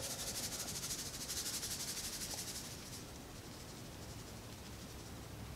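Spice shaker bottle shaken over a rack of ribs, the dry rub rattling out in quick, even, hissy pulses that stop about three seconds in.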